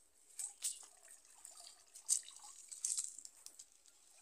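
Water dripping and splashing lightly off a fishing net as it is gathered up in shallow pond water: a few short, irregular drips and splashes, the sharpest about two seconds in.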